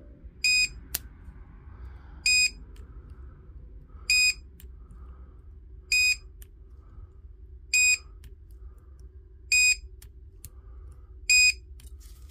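Battery spot welder beeping: seven short, identical high beeps, evenly spaced about two seconds apart, with one sharp click about a second in.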